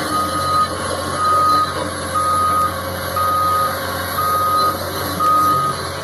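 Construction vehicle's reversing alarm beeping steadily about once a second, six beeps, over the running of its diesel engine. The beeping stops near the end.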